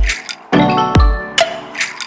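Background music with a steady beat: deep booming kick drums, sharp percussion hits and sustained bell-like keyboard notes.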